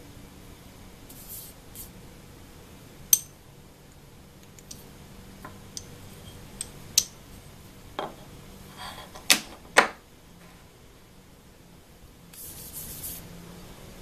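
Aluminum vacuum-pod plates and fittings being handled and fitted together by hand: scattered sharp metal clicks and clinks, the loudest about three seconds in and twice close together near ten seconds, then a brief scraping hiss near the end, over a faint low hum.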